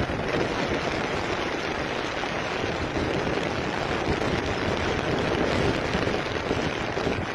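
Steady rushing, splashing water as a mobile crane truck's wheels plough through a shallow river.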